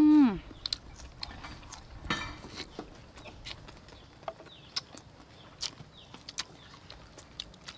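Close-up eating sounds: wet chewing, lip smacks and small clicks and taps as chicken wings are bitten and handled. It opens with a loud, satisfied "mmm" from a woman's voice that slides down in pitch and stops. About two seconds in there is a short, breathy intake.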